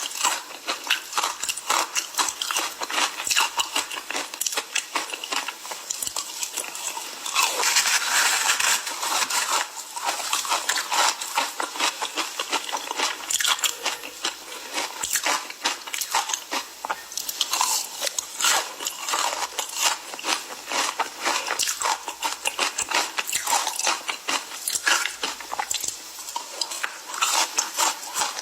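Ice being bitten and chewed: a continuous run of sharp, crackling crunches.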